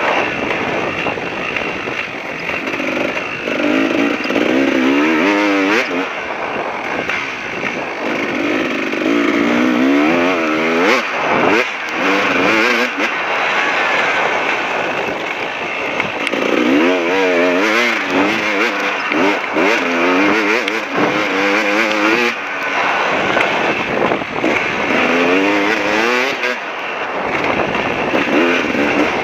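KTM 380 two-stroke dirt bike engine revving up and dropping back again and again as it accelerates and shifts under load, over a steady rush of wind and track noise.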